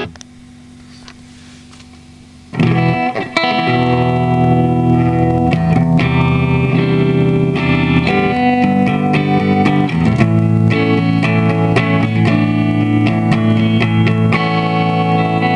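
Electric guitar played through an effects pedal: after a short stretch of low hiss, chords and single notes start about two and a half seconds in and ring on.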